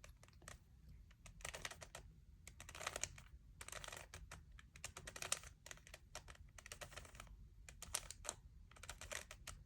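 Plastic 3x3 Rubik's Cube being turned by hand: faint clusters of quick clicks as the layers are twisted round in rapid sequence.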